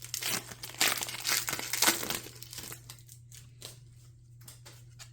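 Foil Pokémon booster pack wrapper being crinkled and torn open, dense crackling for the first two and a half seconds. After that come a few light scattered clicks of handling.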